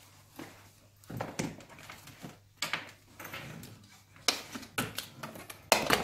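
Irregular knocks, clatters and rustling of paper as magazines and other objects are gathered up from a desk, with two sharp knocks as the loudest sounds, about four seconds in and near the end.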